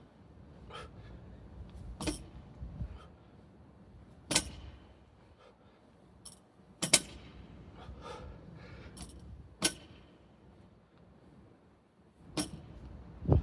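Loaded barbell with iron weight plates clanking sharply, about every two to three seconds, with a short metallic ring after each hit.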